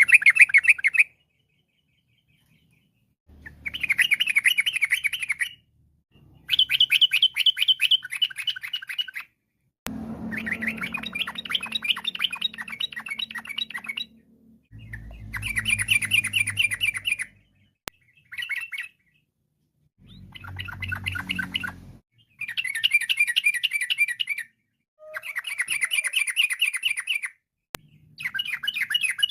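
Yellow-vented bulbul (trucukan) singing in bursts of rapid, bubbling chatter. Each burst lasts one to four seconds, with short silent gaps between them.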